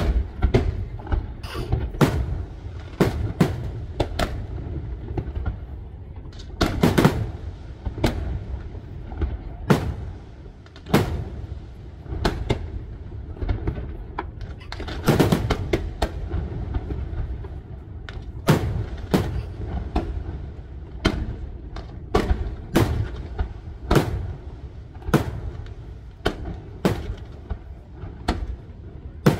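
Aerial firework shells bursting: an irregular run of sharp bangs over a continuous low rumble, thickest about a quarter and half of the way through.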